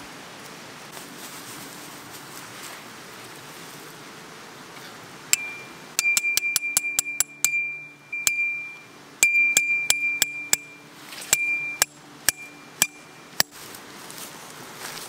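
Metal tent stake being struck into the ground: about twenty sharp, ringing metallic strikes, each ringing at the same high pitch, mostly in quick runs of several a second. The strikes start about five seconds in, after a spell of rustling in dry grass, and stop shortly before the end.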